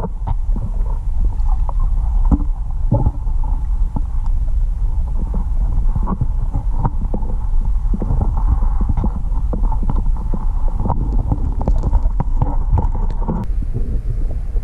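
Muffled underwater rumble picked up by an action camera in its waterproof housing while the diver moves along a riverbed, with many small knocks and clicks from the housing and the spear. A higher layer of the sound cuts off abruptly near the end.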